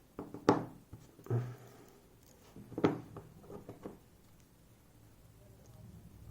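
Small metal clicks and taps of tweezers and lock parts being handled while an EVVA ICS lock cylinder is taken apart, with sharper knocks about half a second and three seconds in. Quiet after about four seconds.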